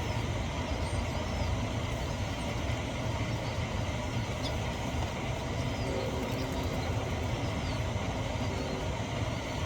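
Steady outdoor background rumble with a few faint, high bird chirps.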